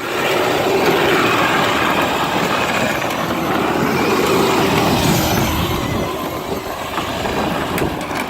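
Power Wheels ride-on Jeep, boosted with an 18-volt battery, driving off: its electric drive motors and gearboxes whine under a steady rough noise from its bare plastic wheels spinning and sliding on the slippery ground.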